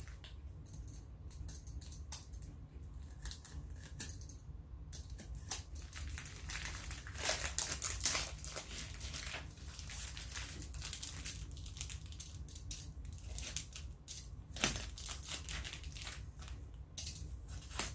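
Packing tape and cardboard packaging being worked open with a box cutter: irregular crackling and crinkling of tape, cardboard and plastic, busiest about a third of the way in and again near the end.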